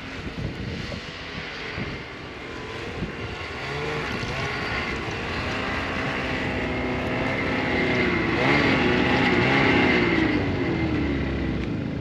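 A small vehicle's engine running, its pitch rising and falling as it speeds up and slows. It grows steadily louder to its peak about two-thirds of the way through, then eases off.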